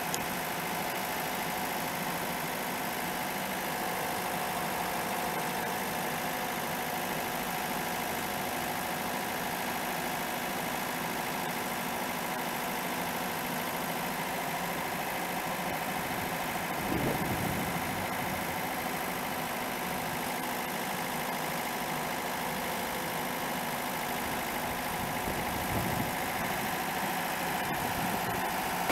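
Excavator engine running steadily, with a brief louder swell about two thirds of the way through.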